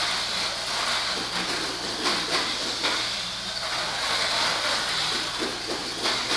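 Tamiya Mini 4WD cars running on a plastic track: a steady high-pitched whir, with a few sharp clicks as they knock against the track.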